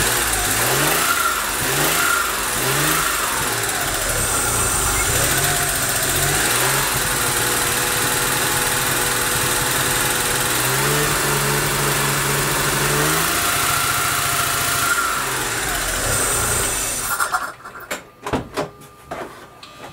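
Daewoo Matiz engine running and being blipped several times, its pitch rising and falling, then held up for a couple of seconds near the middle; the running is quite unstable, with the engine burning oil and smoking. The engine stops about seventeen seconds in, followed by a few sharp clicks.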